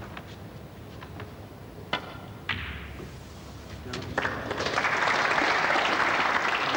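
Snooker balls clicking: the cue tip strikes the cue ball about two seconds in, and a ball-on-ball click follows half a second later. Then audience applause starts about four seconds in and is the loudest sound.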